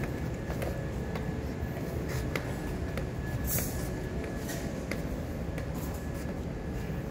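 Stiletto heels of leather thigh boots clicking on a tiled floor as she walks, a sharp click every half second to a second, over a steady low rumble.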